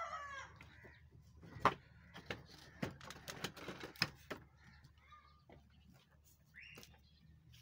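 A rooster's crow trails off with a falling pitch right at the start. Then come scattered sharp clicks and light rustling, with a brief high chirp about two-thirds of the way through.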